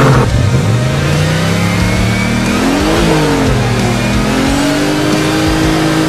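An off-road 4x4's engine revving: the pitch dips, climbs to a peak about three seconds in, drops back, then climbs again and holds.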